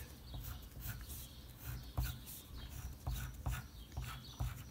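Pencil scratching on paper in short strokes, with several light ticks as the lead meets the sheet.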